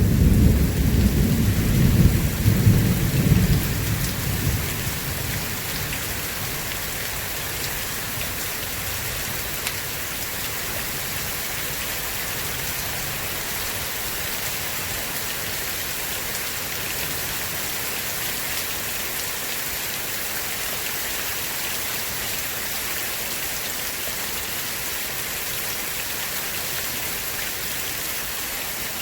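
Steady heavy rain, with a roll of thunder rumbling low at the start and dying away over the first few seconds.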